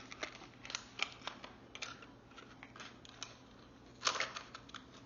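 A small cardboard toy box being pried open by hand: scattered light clicks and scrapes of cardboard, with a louder scrape or tear about four seconds in.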